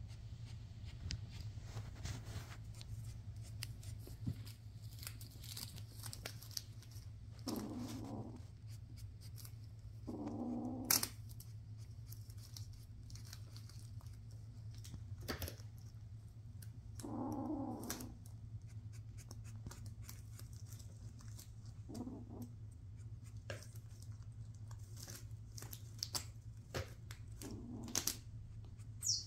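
Shiny foil gift bow crinkling and rustling as Bengal kittens paw and bite at it, with many small clicks, over a steady low hum. About five short low cries, each under a second, come in among the rustling.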